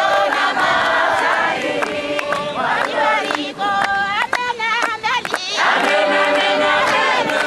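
A crowd of voices singing and chanting together, loud and dense, with sharp percussive hits through it. A little past the middle the massed singing thins and high wavering cries stand out, then the full chorus returns.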